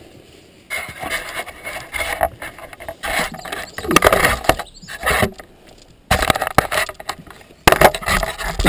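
Close, irregular scraping, rubbing and knocking of hands, boots and gear on a wet log and the canoe as a paddler climbs out of a skin-on-frame canoe onto a slippery landing, starting under a second in.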